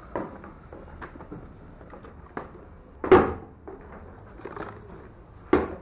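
Plastic hard hats knocking together and against a wire shopping trolley as they are lifted out by hand and dropped into a vehicle's load bin: scattered knocks, the loudest about three seconds in and another near the end.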